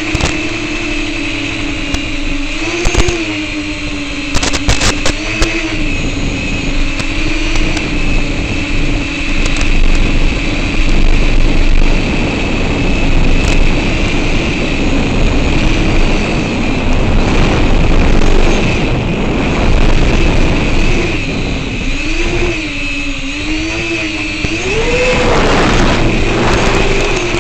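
FPV quadcopter's motors and propellers buzzing at a steady low-throttle hover, the pitch wavering with small throttle corrections, then rising sharply about 25 seconds in as the drone punches up and climbs.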